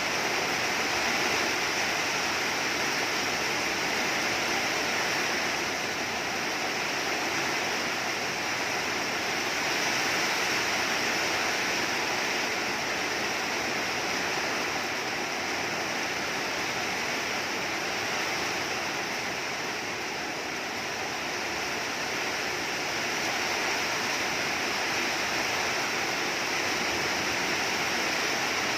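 Heavy rain pouring down steadily, swelling and easing slightly every few seconds.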